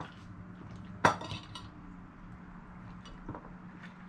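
A metal utensil clinks sharply against a ceramic plate once, about a second in, with a few lighter taps after it, over a steady low hum.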